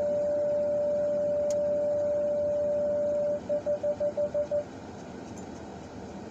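Car parking-sensor warning beeper: a single high beep held as one continuous tone for about three seconds, then fast repeated beeps, about five a second, that stop shortly after. The continuous tone means an obstacle is very close.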